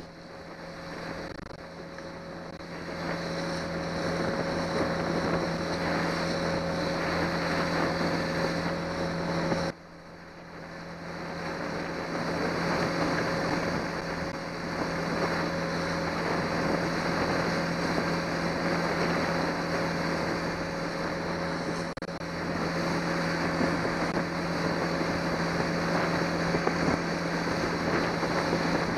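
Johnson 90 hp V4 outboard motor running steadily at cruising speed, with wind buffeting the microphone. The sound drops away suddenly about ten seconds in, then builds back up.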